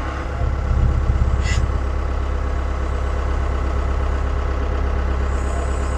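Diesel engine of a Mahindra 2638 compact tractor running steadily, a little louder in the first second and a half, with a brief high-pitched squeak about a second and a half in.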